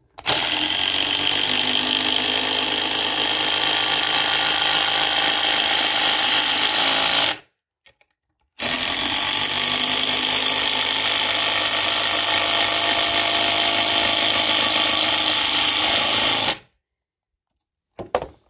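Hilti SID 4-A22 cordless impact driver hammering long screws with washers into a timber beam: two steady runs of about seven and eight seconds with a short pause between, one per screw. The motor and switch have just been cleaned with contact cleaner to cure a loss of power, and the tool drives the screws right in.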